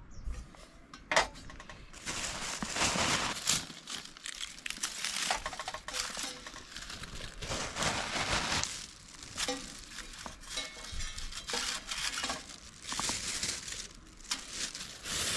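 Rustling and crinkling as something is handled, in irregular bursts, with a sharp knock about a second in.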